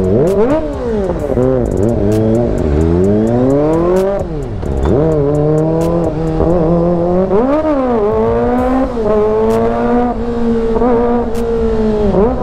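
Kawasaki ZX-25R's 250 cc inline-four with an aftermarket AR full-system exhaust, revving and accelerating under way. The pitch climbs in long rises and drops sharply at each gear change (about four seconds in and again near eight seconds), holds steady for a few seconds, then climbs quickly again near the end.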